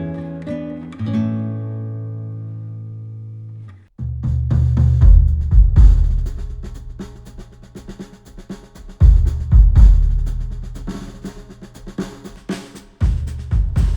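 Recorded music played back through Sennheiser headphones and picked up by microphones: sustained plucked-string chords end abruptly about four seconds in, and a new track starts with loud drum hits, rolls and heavy bass.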